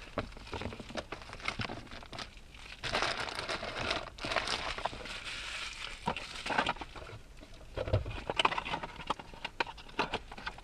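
Packaging crinkling and rustling as boxed accessories are handled and unpacked, in several uneven bursts with small clicks and taps between them.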